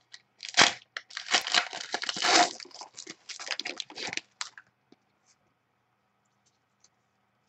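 Foil trading-card pack wrapper being torn open and crumpled by hand, a run of crinkling rips that stops after about four and a half seconds.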